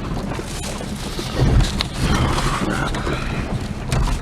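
Pickup truck running, heard from inside the cab: a steady low engine rumble with scattered knocks and rattles.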